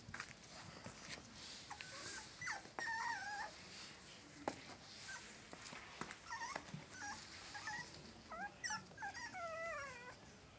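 Puppies whining and whimpering: a string of short, high cries that slide up and down in pitch, with several overlapping near the end.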